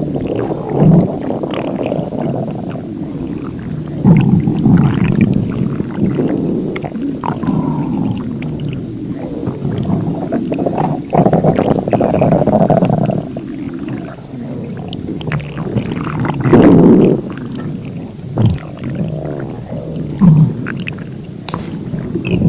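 Human stomach growling and gurgling: a continuous low rumble that swells into louder gurgles about four, eleven, sixteen and twenty seconds in.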